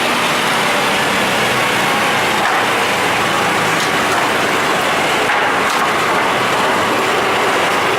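SPB-8-2 pulpwood-processing machine running with a steady, loud mechanical noise.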